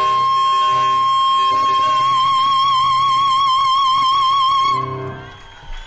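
A female singer holding one long, high sung note into a handheld microphone over sustained piano chords, steady at first and then with a widening vibrato. The note stops about five seconds in, and the audience starts to applaud near the end.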